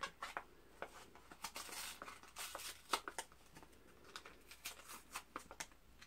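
A small plastic blind-bag packet is torn open and handled by hand. Its wrapper crinkles and tears, with many small irregular clicks from the plastic and a few longer rustles in the first half.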